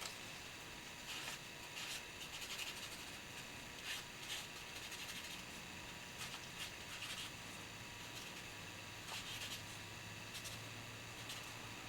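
A pen drawing stripes on folded paper: faint, short scratchy strokes coming in irregular bunches.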